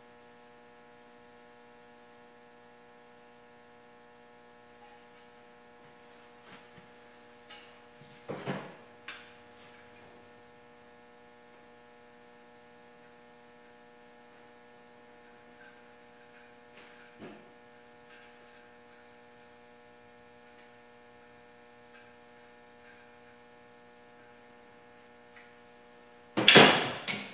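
Steady electrical mains hum with a few faint knocks and clicks of handling, then one loud sharp clatter shortly before the end.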